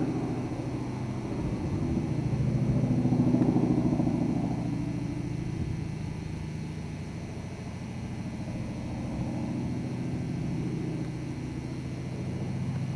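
Twin radial engines of a Lockheed Lodestar airliner running in flight overhead, a steady drone that swells a few seconds in and then gradually fades as the plane moves off.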